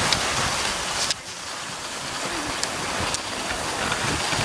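Steady rushing hiss of wind and motion noise on a handheld phone's microphone while skiing over snow, dropping sharply about a second in and then slowly building again.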